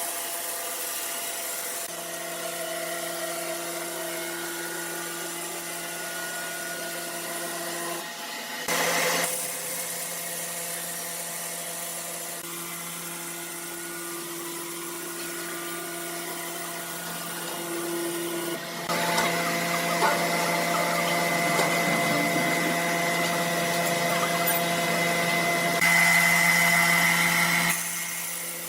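Sawmill machinery running steadily with a constant hum. It swells briefly about a third of the way in, grows louder and busier about two-thirds of the way in, and is loudest near the end, as a saw cuts through wood.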